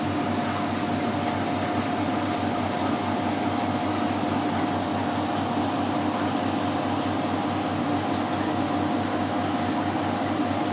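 Steady machine hum over an even hiss, with a constant mid-pitched tone that does not change.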